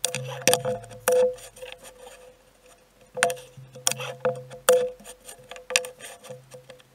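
Background music of short plucked or struck notes with sharp clicky attacks over a low sustained bass.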